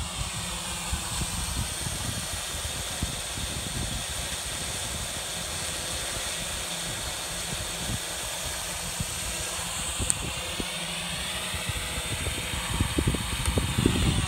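Yuneec Typhoon H 480 hexacopter flying overhead, its six rotors giving a steady buzzing hum that shifts slightly in pitch. Wind buffets the microphone, most heavily near the end.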